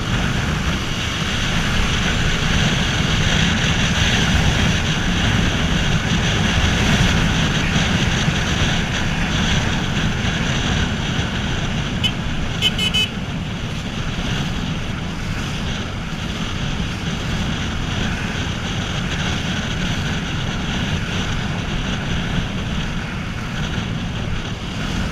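Motorcycle riding at highway speed: steady wind rush over the microphone with engine and road rumble from a Yamaha Fazer 250. About halfway through, a horn gives a quick series of short beeps.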